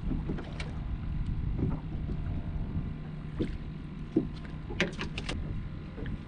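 Wind rumbling on the microphone and water lapping against a small aluminum boat's hull. A quick cluster of sharp clicks comes about five seconds in.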